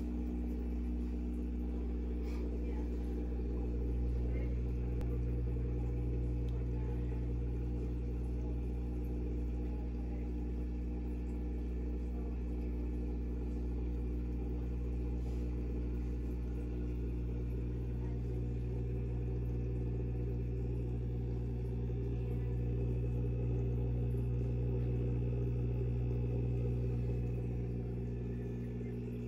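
Steady low hum of an aquarium filter pump, a few fixed tones that hold without change.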